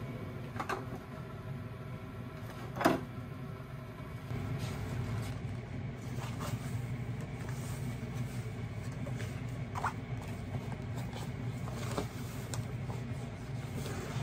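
Steady low hum of room or appliance noise, with a few scattered knocks and clinks as glasses and dishes are handled in a kitchen sink. The loudest is a single sharp knock about three seconds in.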